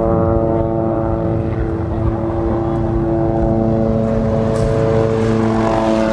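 Small helicopter flying low overhead: a steady engine-and-rotor drone made of several held tones, dropping slightly in pitch near the end as it passes over.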